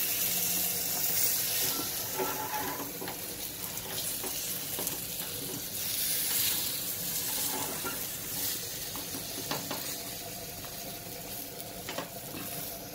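Rava-coated surmai (king mackerel) steaks sizzling steadily in a little hot oil in a nonstick frying pan, with a few light clicks of a wooden spatula against the fish and pan near the end.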